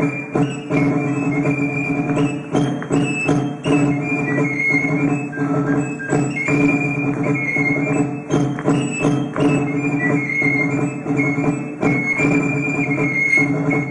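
Instrumental music with frequent percussive strikes under a high melody line.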